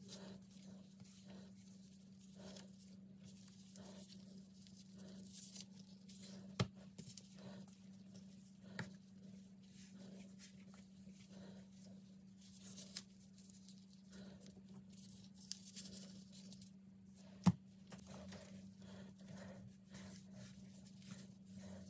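Faint rustling of thin plastic gloves and soft handling noise as bread dough is stretched and tied into knots, over a steady low hum. Two sharp clicks stand out, one about a third of the way in and a louder one near the end.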